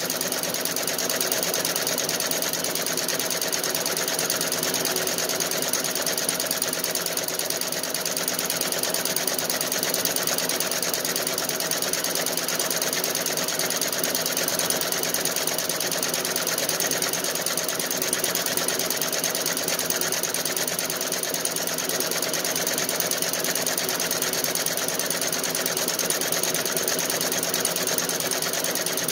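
Feiyue multi-needle commercial embroidery machine stitching, running steadily without a pause.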